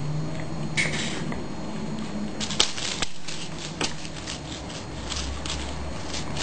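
A cat batting and scrabbling at a fluffy toy held in a hand: quick rustles and light clicks, the sharpest about two and a half seconds in.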